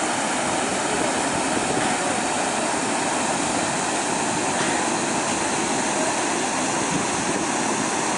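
Floodwater rushing steadily across a wide, shallow gravel riverbed, a constant even roar.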